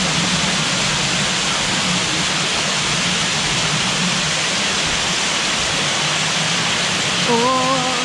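Waterfall rushing, a loud, steady wash of water noise. Near the end a short pitched vocal sound rises briefly above it.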